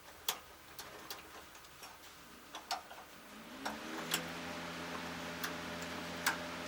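Scattered light clicks and taps of small parts being handled while a part is worked into its clip. About four seconds in, a low steady hum starts, rising briefly in pitch before it settles.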